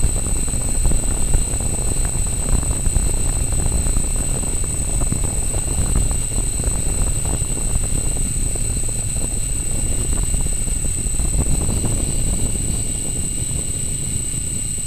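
Hexacopter's electric motors and propellers in steady flight, heard from its onboard camera: a steady high-pitched whine over a rumble of wind buffeting the microphone.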